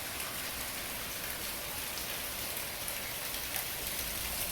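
Heavy tropical-storm rain falling steadily: an even hiss of downpour with scattered louder drops.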